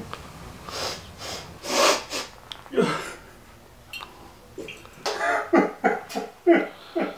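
A man breathing heavily in noisy bursts, then letting out a quick run of short, pitched vocal sounds, about two a second, near the end.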